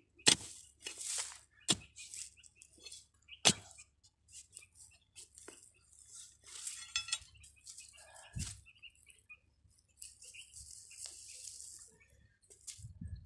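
Metal digging bar striking and scraping into dry, stony soil while sweet potatoes are dug up: a few sharp clinks, the loudest about a third of a second in and near three and a half seconds, amid irregular scraping and crumbling of earth.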